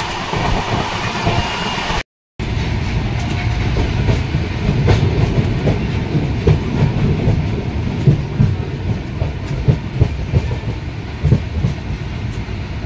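Passenger train coaches running on the track: a steady rumble with irregular clicks and knocks of the wheels over rail joints. The sound cuts out for a fraction of a second about two seconds in, then the clatter carries on.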